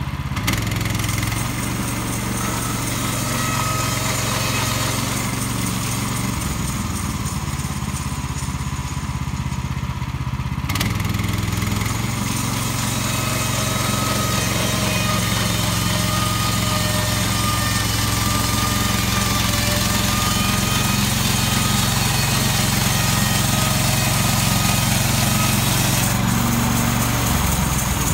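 An engine running steadily under a wide hiss, its note shifting near the start, about eleven seconds in, and just before the end.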